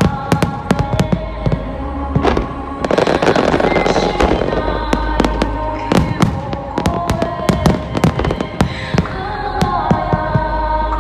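Firework shells bursting in a rapid volley: many sharp bangs in quick succession, with music playing throughout.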